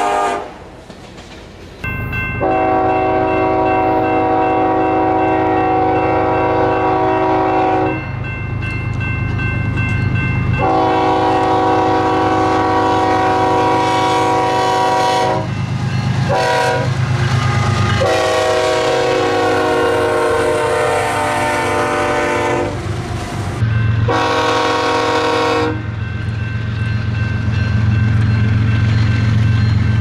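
Nathan K5HL five-chime air horn on a BNSF diesel locomotive sounding a series of blasts: two long ones, a short one, then a long one and a final shorter one. This is the long-long-short-long pattern for a grade crossing. Under the horn runs a steady rumble of the diesel engines and the train, which grows louder near the end.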